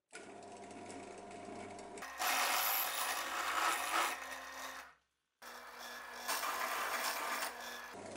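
Bench drill press motor running, growing louder and harsher while the bit cuts into the clamped workpiece, drilling a rivet hole for the handle. The sound cuts off for a moment about five seconds in, then the motor and cutting carry on.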